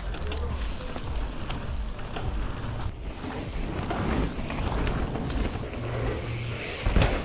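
Mountain bikes rolling down a dirt trail, tyres crunching over gravel and freehubs ticking. There is a single thump near the end, as a bike lands.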